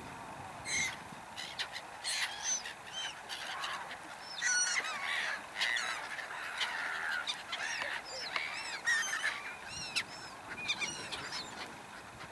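A flock of black-headed gulls calling as they wheel over the river: many short, harsh, overlapping cries, busiest in the middle and thinning out near the end.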